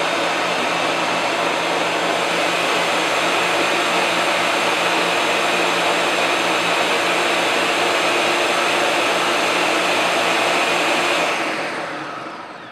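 Countertop blender running steadily at full speed, blending a spinach and peanut butter smoothie with ice. It is switched off about 11 seconds in and its motor winds down.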